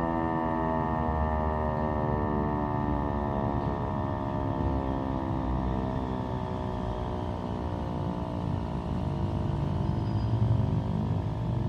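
Civil-defence warning siren winding down at the end of its steady all-clear tone; its many-toned wail glides slowly and evenly lower in pitch as the rotor coasts down. A low rumble swells briefly near the end.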